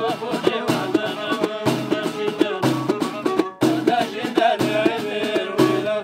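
Folk music played live on hand frame drums, beating a quick, steady rhythm under a plucked string melody.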